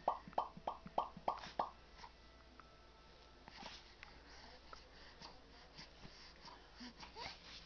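A quick run of about seven short sneezes, about three a second, in the first two seconds, followed by faint scattered small sounds.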